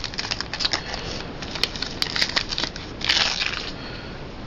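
Wrapper of a football trading card pack being crinkled and torn open: a run of short sharp crackles, with a louder rustle about three seconds in.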